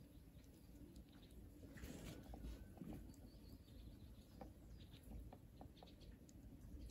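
Near silence: faint outdoor ambience with a low rumble, scattered small ticks and a few faint distant bird chirps.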